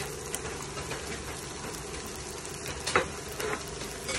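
Chicken and shrimp paste sizzling and crackling in a wok as a bowl of cooked rice is tipped in, with a louder sharp knock about three seconds in.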